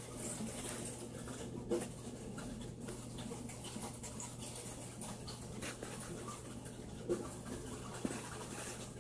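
Steady low hum under a faint hiss, with scattered soft ticks and rustles and a few sharper clicks, one about two seconds in and two near the end.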